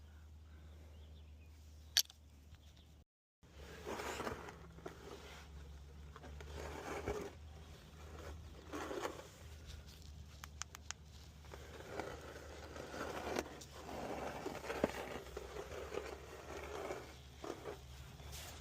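Irregular scraping and rustling handling sounds, with a single sharp click about two seconds in and a steady low hum underneath.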